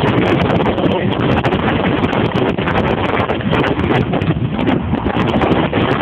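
Infiniti G35's 3.5-litre V6 running under hard driving, heard from inside the cabin, with steady wind buffeting on the microphone.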